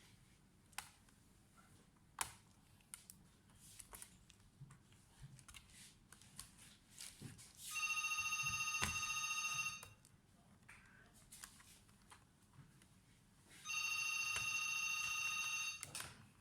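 A telephone ringing twice, each ring lasting about two seconds with a pause of about four seconds between them. Faint scattered clicks and taps come before and between the rings.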